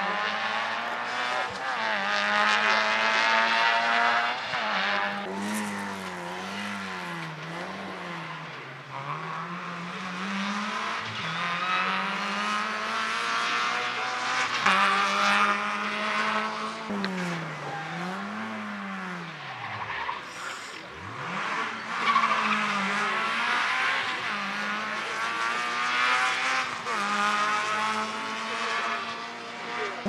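Rally car engines at full throttle, the revs climbing and dropping again and again through gear changes and braking for corners, with one deep drop in revs about two-thirds of the way through.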